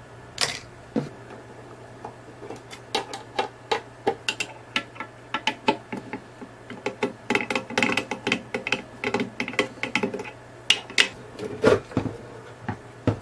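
Screws being backed out of a mixing desk's sheet-metal bottom panel with a hand screwdriver: a long run of quick clicks, taps and small metallic rattles. A few louder knocks come near the end as the metal panel is lifted off.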